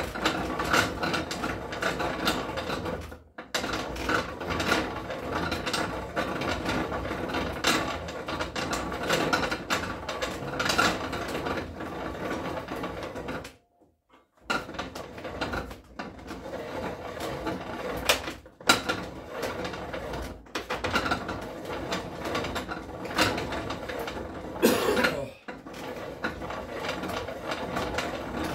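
A power drill turns a reamer rod through a rifle barrel's bore on a reaming bench, running with a steady mechanical whir and rattle. It stops and restarts several times, once for about a second near the middle.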